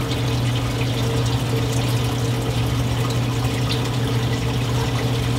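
Reef aquarium sump running: a steady rush of circulating water over a constant low pump hum, with a faint higher steady tone above it.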